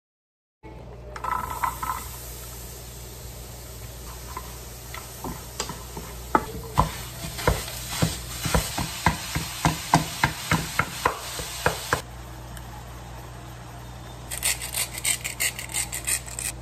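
Food sizzling in a nonstick frying pan while a wooden spatula stirs it, tapping and scraping against the pan about twice a second. Near the end, seasoning is shaken over the pan in quick rattling bursts.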